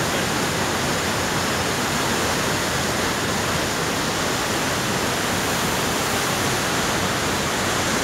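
Steady, loud rush of a large waterfall pouring into a rocky river gorge.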